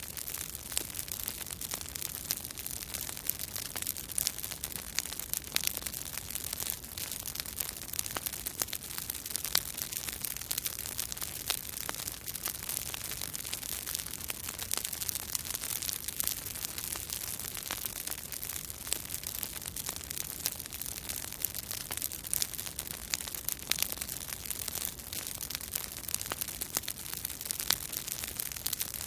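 Bonfire crackling: a steady hiss with frequent, irregular sharp pops and snaps.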